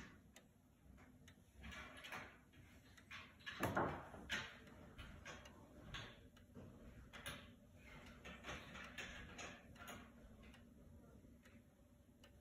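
Howard Miller weight-driven pendulum wall clock ticking faintly and steadily, the tick-tock of its escapement. A louder knock comes about four seconds in.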